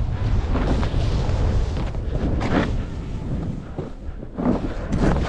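Wind buffeting the microphone as a low, steady rumble, with a swish of snow under the rider's edges at each turn in powder, about one every two seconds.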